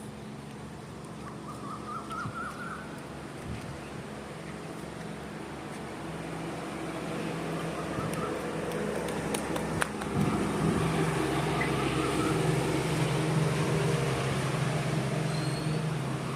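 A motor vehicle's engine running with a steady low hum that grows louder about ten seconds in, with traffic noise around it and a few short chirps.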